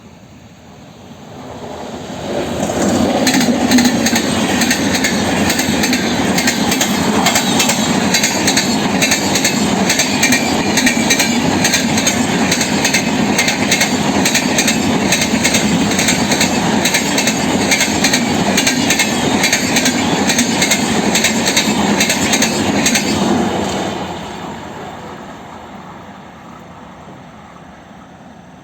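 Express passenger train rolling past, its wheels clicking rapidly over the rail joints. It builds over the first few seconds, holds loud and steady, then fades away from about 23 seconds in as the train recedes.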